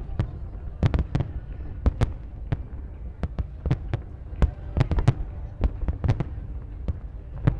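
Aerial fireworks shells bursting in quick, irregular succession: sharp bangs, often two or three a second, over a continuous low rumble.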